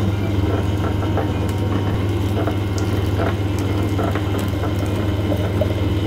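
Electric sugarcane press running with a steady low hum while a cane stalk is fed through its rollers, the crushing giving irregular cracks and clicks. Juice trickles from its tap into a glass.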